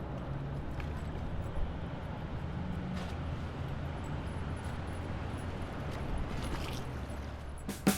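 Steady outdoor background noise: an even hiss over a low, steady rumble, with a few faint clicks.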